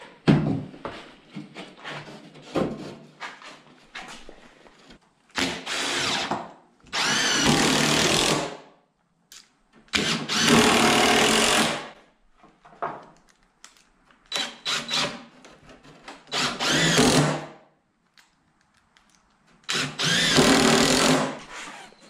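Power drill driving screws into wooden boards, fastening braces into the top frame of a wooden hay feeder. It comes in several bursts of a second or two each, rising in pitch as each screw runs in, with knocks of wood being handled in between.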